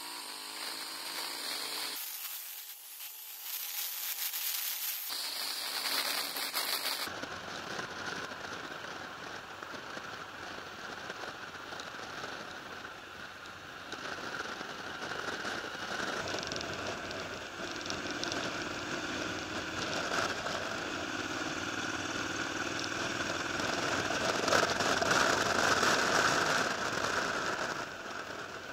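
Wind rushing and crackling over the microphone of a Honda Integra motorcycle under way, with engine and road noise underneath. For a few seconds near the start the sound goes thin, with the bass gone.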